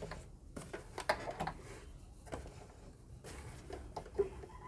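Faint handling sounds at a sewing machine: a few irregular light clicks and soft fabric rustles as silky blouse fabric and a collar are set under the presser foot. The machine is not stitching.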